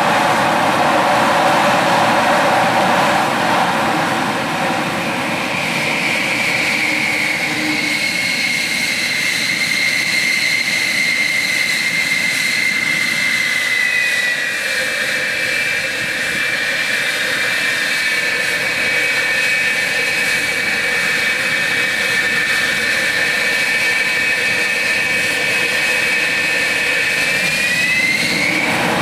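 F-4F Phantom's twin J79 turbojets running on the ground just after a cartridge start: a steady roar with a high whine over it. The whine steps in pitch once or twice and rises near the end.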